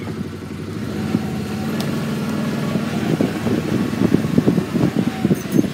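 A vehicle engine running steadily while driving slowly, with irregular low knocks and rattles from about three seconds in.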